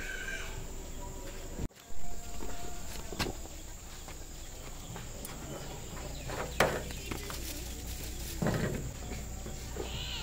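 Clicks and knocks of hands working the plastic tap of a water jerrycan, the sharpest click about six and a half seconds in and a duller knock a couple of seconds later.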